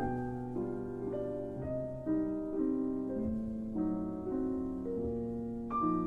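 Background piano music: a slow melody over held chords, the notes changing about every half second.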